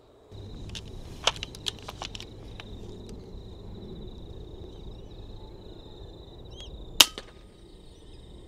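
A single shot from a suppressed FX Impact M3 .22 PCP air rifle: one short, sharp crack about seven seconds in. Behind it is steady low outdoor background noise with a faint steady high tone, and a few small clicks come in the first couple of seconds.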